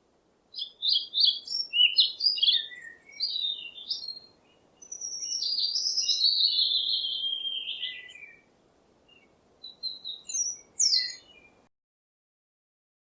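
A songbird singing: quick chirps and twittering phrases, with a longer phrase that falls in pitch in the middle, over a faint hiss. It stops abruptly about a second and a half before the end.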